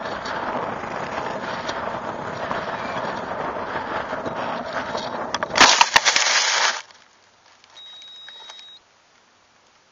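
Wind rushing over the onboard camcorder's microphone as the high-power model rocket comes down under its parachute, then a loud crash about five and a half seconds in as it hits the ground, with a second of scraping noise before it goes quiet. Near the end a single high electronic beep lasts about a second.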